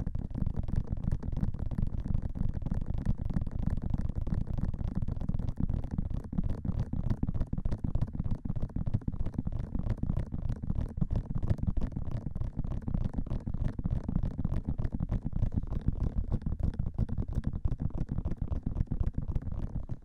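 Fingertips tapping fast and continuously on the ears of a binaural dummy-ear microphone: a dense stream of dull, bass-heavy taps heard right at the microphone's ears.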